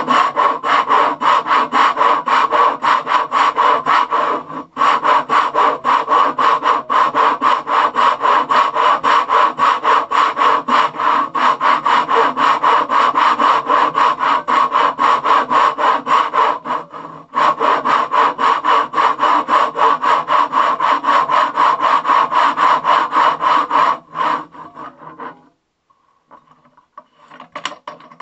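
Fret saw cutting fret slots in a wooden guitar fingerboard through a metal fret-slotting miter box: rapid, even back-and-forth strokes, with two short breaks. The sawing stops near the end and gives way to faint handling sounds as the box is adjusted.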